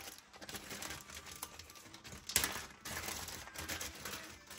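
A clear plastic parts bag crinkling and rustling as hands handle it, in irregular bursts, with the loudest rustle about two and a half seconds in.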